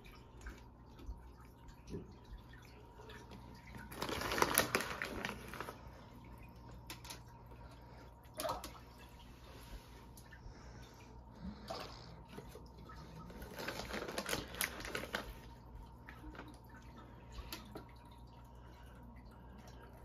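Aquarium filter water trickling and dripping steadily over a low pump hum, with two bursts of dense rattling, about four and fourteen seconds in, as pellet fish food is shaken from its container.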